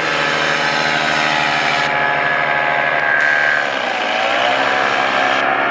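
Paramotor's engine and propeller running steadily overhead as the powered paraglider flies past. Its pitch sags briefly about four seconds in, then rises again.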